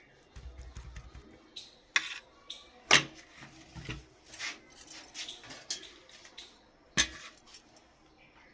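Utensil clinks, taps and scrapes against a plate while mashed potato filling is spread onto bread slices. There are scattered light taps, with sharper clinks about two, three and seven seconds in.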